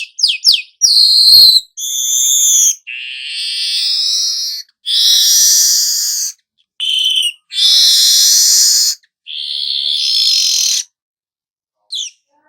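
Manyar (weaver bird) singing its 'nyerut' song. A few quick sharp chirps come first, then a series of long, rasping, buzzing phrases of one to two seconds each, separated by short pauses.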